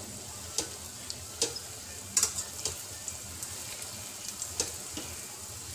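Urad dal bhallas deep-frying in hot oil in a kadhai, making a steady sizzle while a slotted spoon stirs them, with a few sharp clicks.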